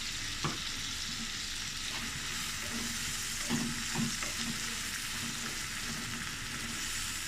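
Chopped onion, capsicum and tomato sizzle steadily in hot oil in a pan. A spatula stirs them and knocks against the pan a few times.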